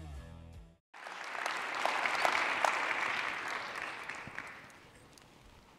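Intro music cuts off under a second in. After a brief silence, audience applause swells and gradually fades away.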